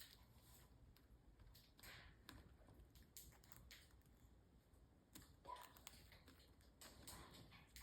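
Near silence with faint, scattered small clicks and taps, and a brief faint chirp about five and a half seconds in.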